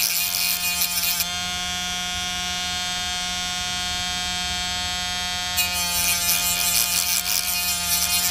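Dremel-type rotary tool with a cut-off wheel running at a steady high whine, grinding the solder barbs off small soldered metal transformer tubes. The rough grinding sound comes in two spells: during about the first second, and again from about five and a half seconds in. In between, the tool runs free.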